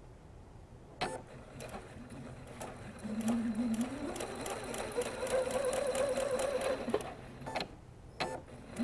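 Electric sewing machine stitching a seam: it starts with a click about a second in, its motor whine rises in pitch as it speeds up, and it runs steadily before slowing to a stop near the end.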